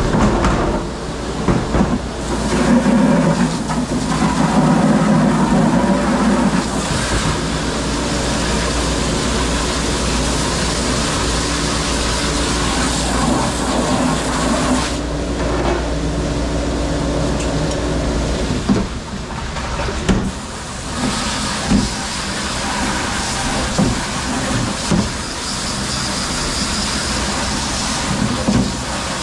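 Steady mechanical drone of commercial dish-room machinery running. From about two-thirds through, short knocks and clatters of dishware break in over it.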